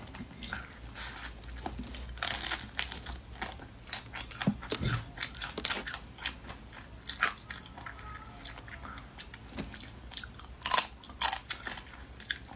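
Close-miked eating of boiled crayfish: shells cracking and being pulled apart by hand, with biting and chewing of the meat. The clicks come in clusters, and the sharpest cracks fall a little before the end.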